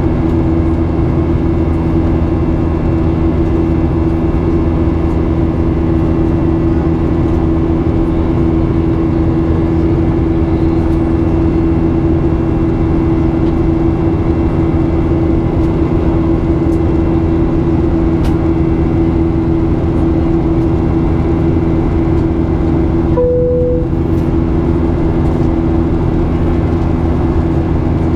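Steady in-flight cabin noise of a Boeing 737-800: the drone of its CFM56-7B turbofans and the rush of air, a low hum with two steady tones, heard from inside the cabin by the window. About 23 seconds in a brief steady tone sounds for under a second.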